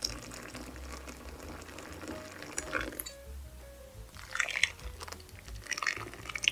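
Background music with a steady low bass line, over liquid being poured and splashing into a bowl of yogurt, coming in bursts around the middle and through the second half.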